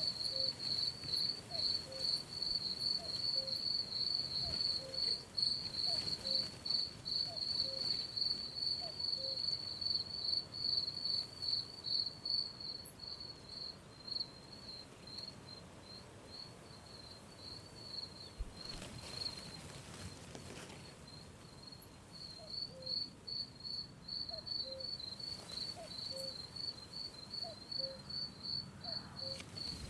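Crickets chirping in a fast, steady, pulsing trill that dips quieter through the middle and then comes back up, with a fainter lower chirp repeating about once a second.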